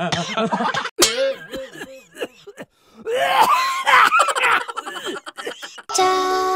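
A man's loud, exaggerated comic vocal noises with laughter-like bursts, in several outbursts with a long rising and falling one in the middle. About six seconds in, a children's jingle with steady held notes starts.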